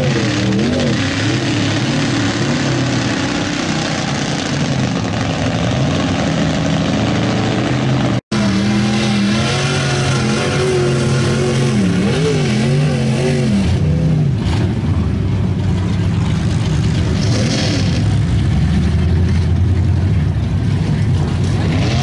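Lifted 1950s Ford pickup's engine revving hard as its big mud tyres churn through a mud pit and throw mud, the engine pitch rising and falling again and again. The sound drops out for an instant about eight seconds in.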